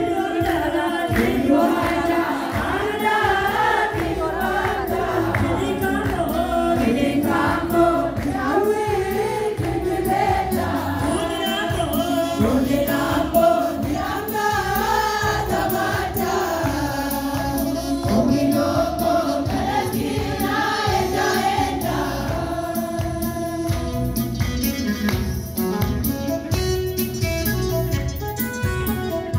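Women's church choir singing a hymn together over a steady instrumental backing. In the last several seconds the voices thin out and the held instrumental tones come to the fore.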